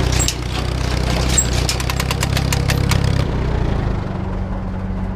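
Tractor engine running steadily under the Massey Ferguson #12 baler, with a rapid clatter of clicks and knocks from the baler's mechanism. About three seconds in the clatter stops and the engine runs on alone.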